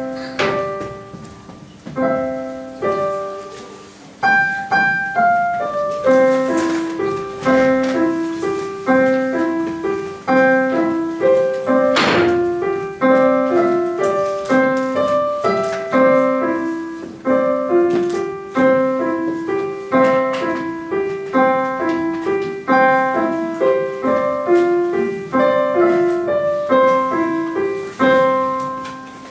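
Solo piano playing a slow piece in a steady rocking pattern of broken chords, with the last chord dying away near the end.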